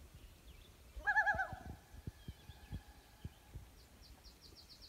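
Common loon calling across a still lake: a short quavering call about a second in that trails off into a long fading note. Soft low thumps recur underneath, and a faint high songbird trill comes near the end.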